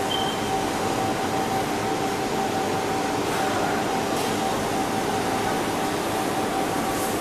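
Environmental test chamber housing a sweating guarded hotplate, its air-handling and cooling machinery running: a steady hum and rush of air with a constant mid-pitched whine, and a few faint ticks.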